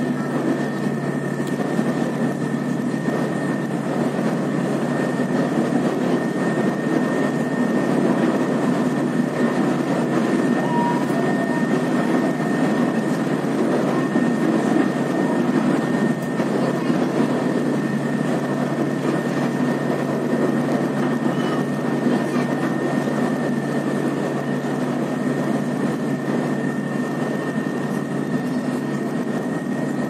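A boat's engine running steadily under way: a constant low drone with a thin steady high whine above it.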